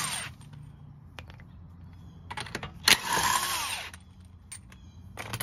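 Cordless DeWalt 1/2-inch impact wrench run in short bursts on a car's lug nuts to break them loose: one burst ends just after the start, and a second of about a second begins about three seconds in, its motor winding down with a falling whine as the trigger is let go.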